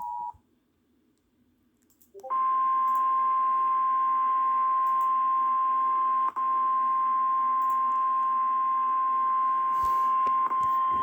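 A two-note tone cuts off at the start. After about two seconds of quiet, a single steady high tone sounds for about nine seconds. This is the NOAA Weather Radio warning alarm tone, which signals that an emergency weather alert message follows.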